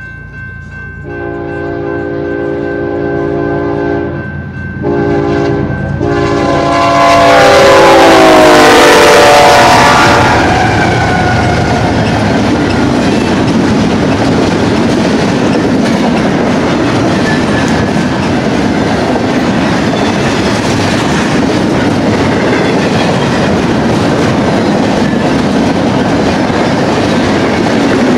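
Eastbound BNSF double-stack intermodal train led by a GE ES44DC locomotive, sounding its air horn in long blasts as it nears the grade crossing. The horn's pitch drops as the locomotives pass, about seven to ten seconds in, at the loudest point. After that comes the steady noise of the container well cars rolling over the rails.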